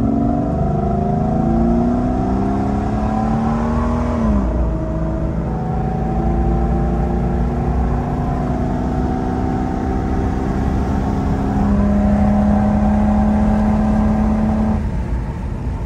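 Jeep Cherokee XJ engine at full throttle, heard from inside the cabin: the engine note climbs, drops as the transmission shifts up about four seconds in, climbs again, and shifts once more near twelve seconds. A few seconds before the end the engine eases off as the throttle is lifted.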